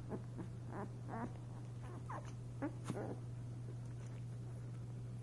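Nine-day-old puppies giving short, high squeaks and whimpers, five or six in the first three seconds, over a steady low hum.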